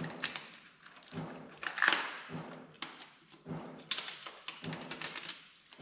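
Plastic packaging crinkling and rustling in short irregular bursts with small clicks, as a new shifter is unwrapped by hand.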